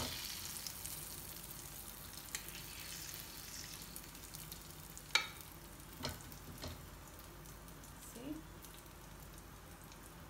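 Hot oil sizzling in a frying pan around fried rohu fish, louder at first and then fading. A steel spatula makes a few sharp clicks and scrapes against the pan, the loudest about five seconds in.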